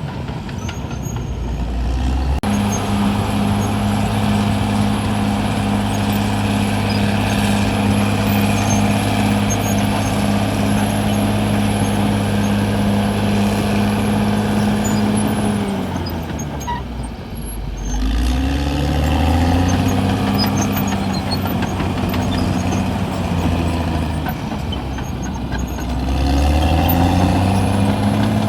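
Diesel engine of a CAT D6R XL bulldozer working. It jumps to a high, steady engine speed a couple of seconds in and holds there for a long stretch, drops away a little past halfway, then revs back up twice.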